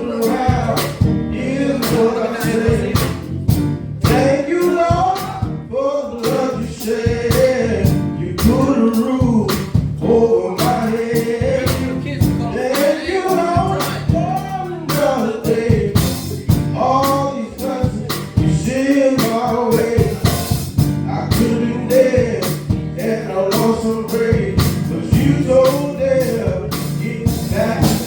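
Gospel music: a singer's voice over a live band with guitar and a steady beat of about two strokes a second.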